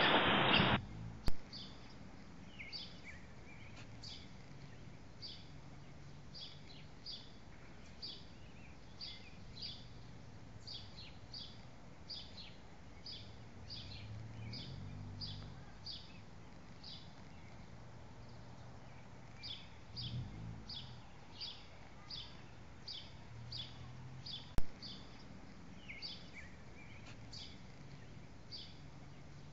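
A small bird chirping over and over, short high chirps about one to two a second with a pause in the middle, over faint outdoor background noise. Two sharp clicks stand out, one just after the start and one near the end.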